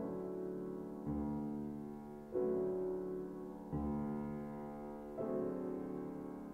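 Grand piano playing slow chords, five in all, one about every 1.3 seconds, each struck and left to ring and fade before the next.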